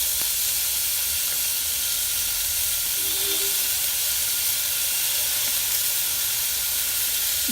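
Onion and green chillies frying in a little coconut oil in a pressure cooker, a steady sizzling hiss.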